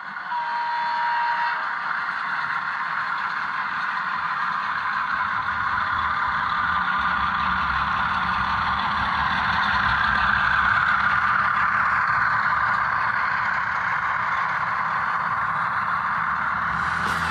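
HO scale model locomotive with an Atlas motor and drive running on a model railroad layout: a steady whir and clatter of motor, gears and wheels on the rails, with a lower rumble coming in about six seconds in.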